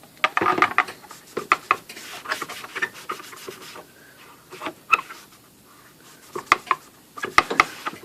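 Towel rubbing over a typewriter cover panel as it is wiped down, in uneven strokes broken by scattered clicks and knocks.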